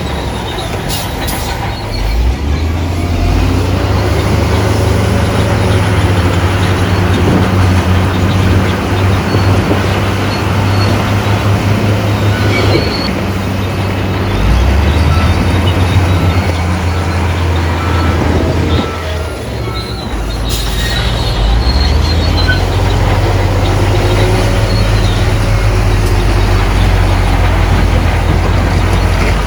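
Shantui crawler bulldozer working: its diesel engine runs with a steady low drone under load while the steel tracks give wavering high squeals. The engine eases off briefly about two-thirds of the way through, then picks up again.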